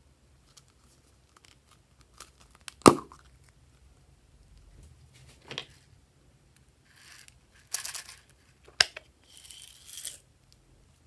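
Small plastic novelty containers being handled and opened, with a sharp plastic click about three seconds in as the loudest sound. Later come short rustling spells as glitter and sequins are shaken out.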